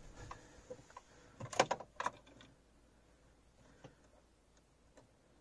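Clicks and a brief key-ring rattle as the ignition key of a VW TDI diesel is turned on, about one and a half to two seconds in, followed by only faint ticks while the glow plugs preheat for a cold start.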